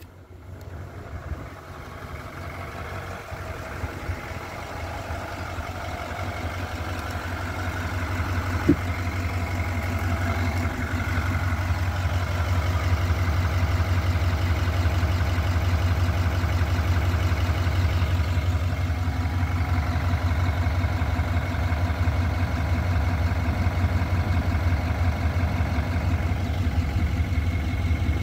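Chevrolet Silverado 3500 HD's 6.6-litre Duramax V8 diesel idling steadily with an even low pulse. It grows louder over the first ten seconds or so as the microphone nears it, then holds level.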